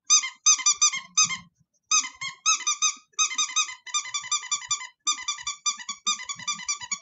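A rapid series of short, high squeaky chirps, each dipping slightly in pitch, coming in quick runs of several a second with brief gaps between the runs.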